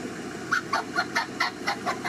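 Young macaque giving a rapid string of short, squeaky cries, about seven of them at roughly four a second, starting half a second in.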